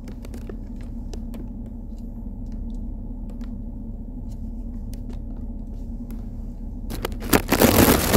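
Muffled, steady low rumble of a car's air conditioning and engine inside the cabin, picked up by the camera microphone, with a few faint clicks. About seven seconds in comes a loud burst of crackling rustle.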